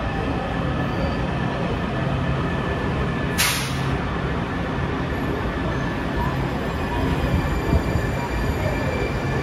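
Washington Metro subway train pulling out of a station: steady low rumble with a short hiss about three and a half seconds in. Faint rising whines follow as it gathers speed.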